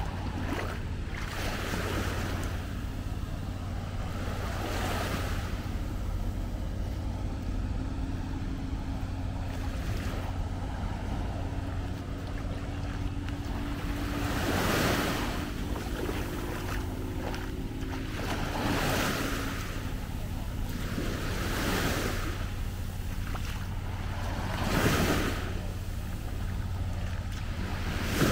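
Small waves breaking and washing up on a beach, a swell every few seconds, over a steady low rumble.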